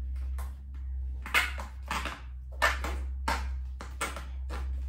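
Stiff plastic blister packaging being cut and pried open with a knife: a run of five or six crackling strokes, about two a second, with sharp snaps of the plastic on the loudest ones.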